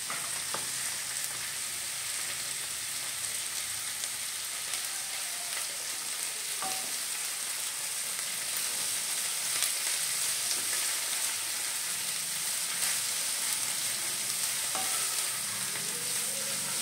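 Shredded cabbage and curry leaves frying in hot mustard oil in a kadai, a steady sizzle, as a wooden spatula stirs them with a few faint knocks.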